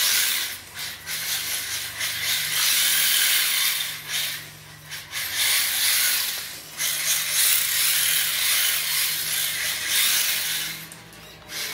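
HSP 94123 Flying Fish 1:10 4WD brushed electric RC drift car driving on a tile floor. The brushed motor whines and the tyres hiss as the car slides, in several surges that swell and drop as the throttle is worked.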